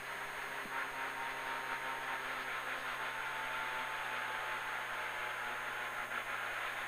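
Renault Clio Super1600 rally car's engine running at steady revs as the car drives along a road, heard from inside the stripped cabin together with tyre and road noise.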